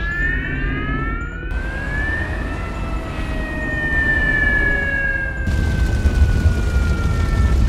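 Cartoon fire-truck siren wailing over a low rumble: one long slow rise, then a long slow fall, starting to rise again at the end. A louder, noisier rumble joins about five and a half seconds in.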